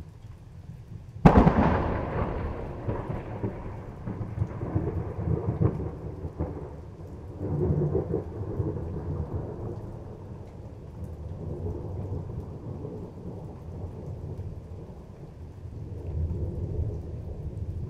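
Close thunder during a rainstorm: a sharp crack about a second in, then a long low rumble that rolls on, swelling again several times, over steady rain.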